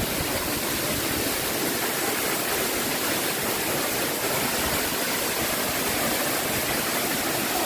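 Waterfall pouring onto a rock shelf: a steady, unbroken rush of falling and splashing water.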